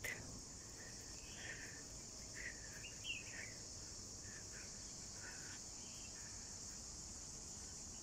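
A steady, high-pitched chorus of insects, faint and unbroken, with a few soft bird chirps scattered through it.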